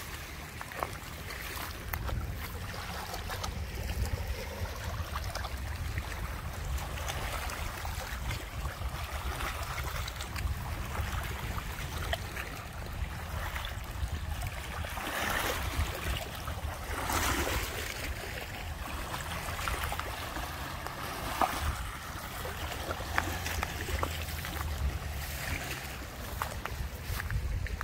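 Steady wind rumble on the microphone over a wash of moving water, with a few brief louder swells about halfway through and scattered light clicks.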